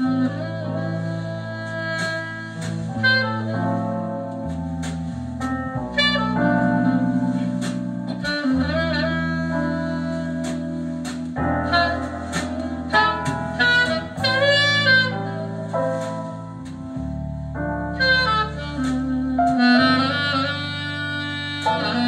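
Instrumental break of a sung ballad played back through a pair of DIY flat wood-diaphragm speakers, each driven by a 1-inch, 8-watt exciter: a wavering lead melody over bass notes that change every few seconds.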